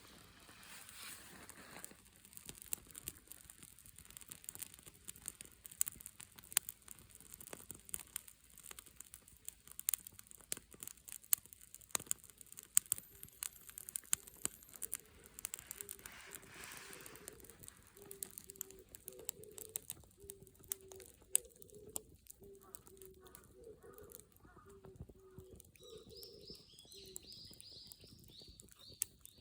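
Wood fire crackling, with many irregular sharp pops. In the second half a run of short, even low notes sounds in the background, and high chirps come near the end.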